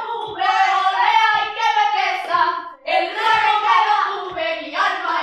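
Women singing a lively song in high voices, with a beat of hand claps.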